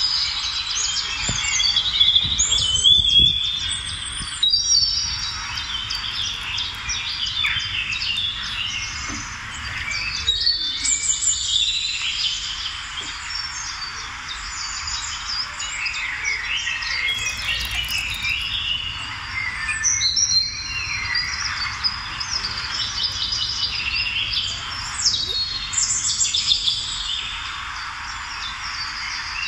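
Birdsong: many birds chirping and whistling at once, a dense run of short calls over a steady hiss.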